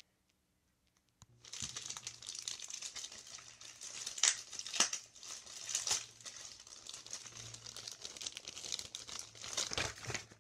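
Clear plastic packaging bag crinkling and rustling as a hand unwraps an HO scale model shipping container from it. It starts about a second in and goes on steadily, with a few sharper crackles near the middle.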